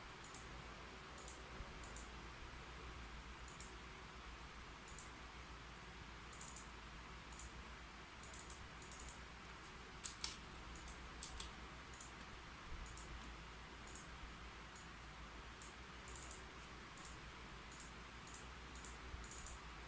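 Keyboard keys clicking at an irregular, unhurried pace over a steady low room hum, with two louder key strikes about ten and eleven seconds in.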